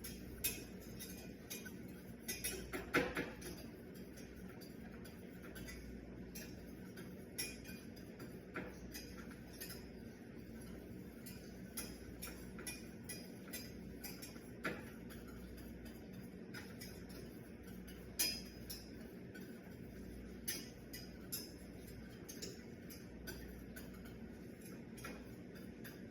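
A utensil stirring a velouté sauce as it simmers and thickens in a pan, clinking against the pan at irregular moments, over a steady low hum.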